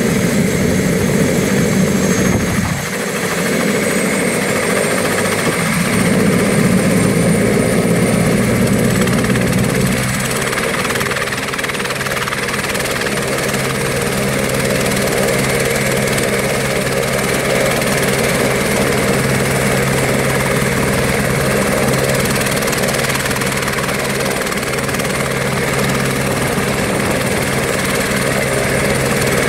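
Single-engine light helicopter running on the ground with its main rotor turning: steady turbine whine and rotor noise. The high whine climbs slightly about three to four seconds in, and a steady low hum settles in about ten seconds in.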